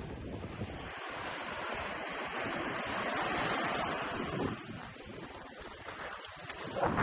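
Ocean surf washing onto the beach, swelling to a peak about halfway through and easing off, with another surge near the end. Wind rumbles on the microphone.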